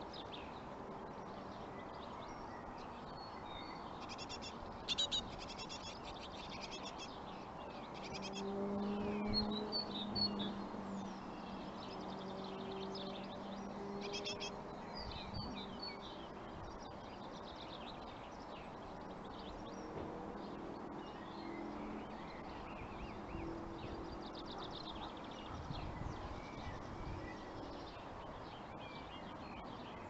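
Great tit nestlings in the nest cavity giving short high cheeping calls in scattered bursts. A low drawn-out tone comes and goes beneath them, loudest about a third of the way in.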